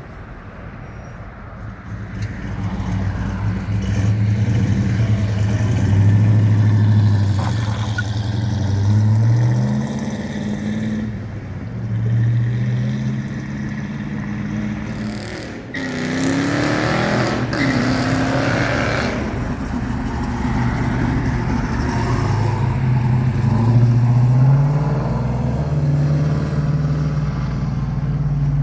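Car engine revving repeatedly in short rising pulls as cars accelerate out of a lot. A louder rush from a vehicle comes about halfway through.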